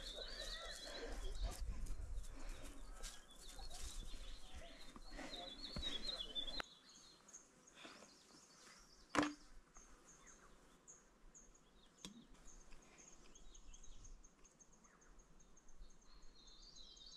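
Small birds chirping and trilling faintly in a forest, over low rumble and footsteps for the first few seconds. It then goes quieter, with a high, steadily repeated chirp, a single sharp knock about nine seconds in, and more bird chirps near the end.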